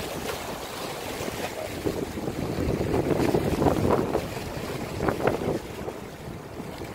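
Wind buffeting the microphone over small waves washing and splashing against shoreline rocks, swelling louder for a few seconds in the middle.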